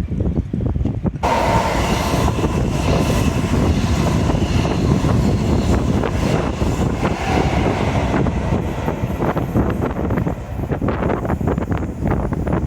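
Strong wind buffeting the phone's microphone with a heavy low rumble, joined about a second in by a sudden, fuller rushing noise that eases off in the second half.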